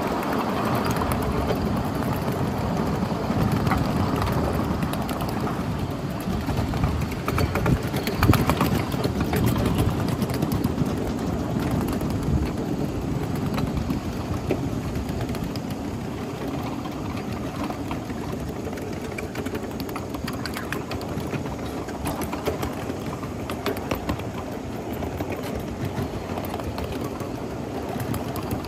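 Riding on a 1/8-scale live steam miniature train: a steady rumble of wheels running on the track, with scattered clicks and clunks, the loudest about eight seconds in.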